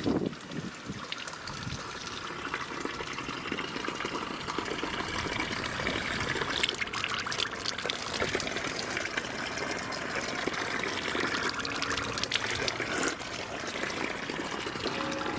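Water trickling and splashing steadily from a spring outlet.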